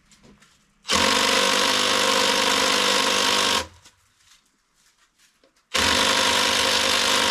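Cordless drill boring into a wooden railroad tie, run in two bursts of a couple of seconds each with a pause between; the bit is working hard through the tough wood.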